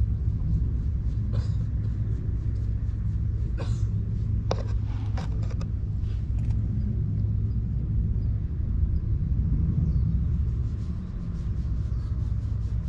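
Calico cat purring steadily and deeply, close to the microphone, as it is stroked. A few brief rustles in the first half.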